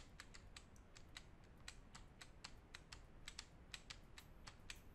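Faint tapping of computer keyboard keys: uneven, light clicks a few times a second.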